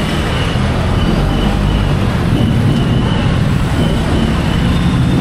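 Loud, steady city street noise: a dense rumble of road traffic, with a high tone repeating in short pulses.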